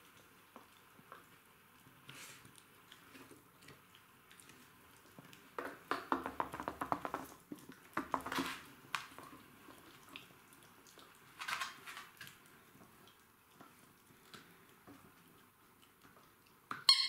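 Jack Russell terriers chewing and gnawing on a chew and toys: a couple of bursts of quick clicking bites around the middle, and a short sharp sound near the end.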